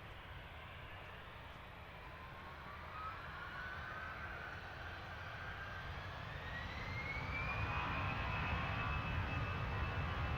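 Jet airliner's engines spooling up: a whine that climbs steadily in pitch for several seconds, then holds level over a low rumble, growing louder throughout.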